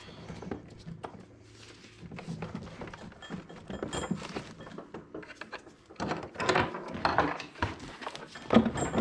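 Irregular knocks, clunks and scrapes from a Honda Civic Type R six-speed manual transmission case as the halves are rocked by hand and pried at the seam to split them. The louder clunks come in the second half.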